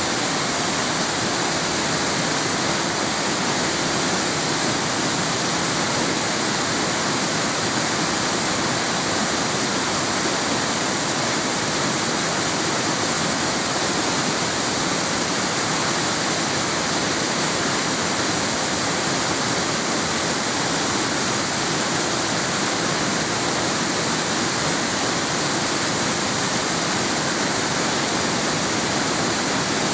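Waterfall pouring steadily, a constant even rush of falling water with no change in level.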